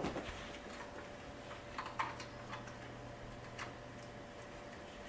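Faint, scattered clicks and light taps of a hand tool and hands working on a TV's power supply board in its metal back chassis, over a steady low hum.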